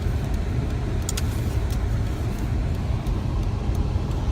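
Steady low rumble of a car driving, with engine and tyre road noise heard from inside the cabin.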